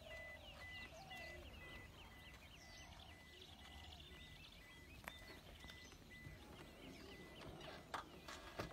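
Near silence: faint outdoor ambience with faint, scattered bird chirps and a single click about five seconds in.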